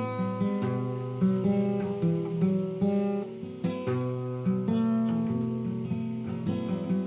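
Acoustic guitar playing, plucked and strummed chords with a new note or chord struck about every half second.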